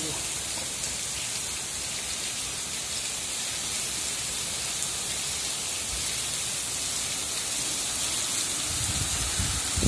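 Heavy rain falling steadily on a paved street, an even hiss, with a brief low rumble near the end.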